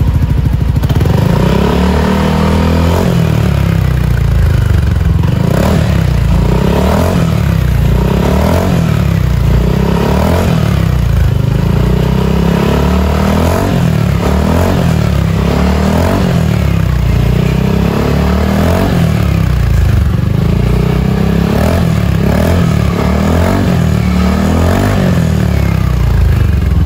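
Yamaha NMAX scooter's single-cylinder engine revved repeatedly through a Prospeed Black Series CNC aftermarket exhaust. The pitch rises and falls with each throttle blip, about every two seconds.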